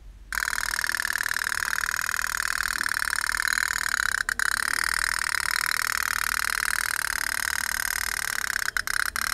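Tin pop-pop toy steam boat running on water: a rapid, steady putt-putt as its thin tin diaphragm, heated by a small oil-wick flame, flexes with each flash of steam and drives water out of its two pipes. It starts suddenly and runs on with two brief breaks, about 4 s in and near the end.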